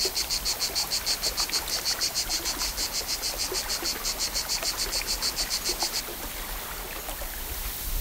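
An insect chirping in a fast, even rhythm, about five high-pitched chirps a second, over a steady outdoor hiss. The chirping cuts off suddenly about six seconds in, leaving only the hiss.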